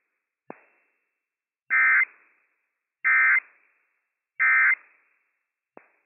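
Emergency Alert System end-of-message data bursts: three short, harsh digital buzzes about a second apart, closing the weather radio broadcast of the test. A sharp click sounds about half a second in, and another near the end.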